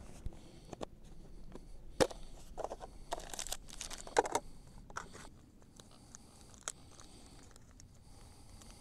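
Handling of a small plastic stove case and a folding metal backpacking stove: a string of sharp clicks and short rattles as the case is opened, the stove taken out and its pot supports unfolded. The sharpest click comes about two seconds in, with a cluster of rattling clicks a second or two later and fewer, fainter ones after.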